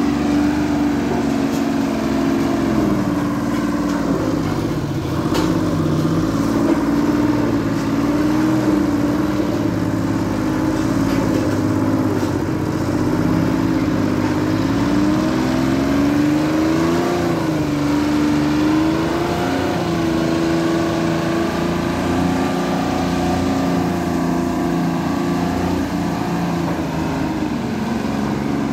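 Diesel engine of a single-drum ride-on road roller running steadily as it drives over loose dirt to compact it, its pitch rising and falling slightly a few times.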